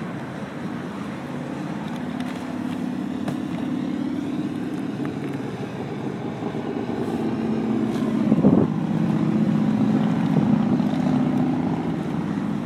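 Quadcopter drone's propellers buzzing steadily as it hovers, the pitch wavering slightly, with wind noise on the microphone. A brief louder rush of noise comes about two-thirds of the way in.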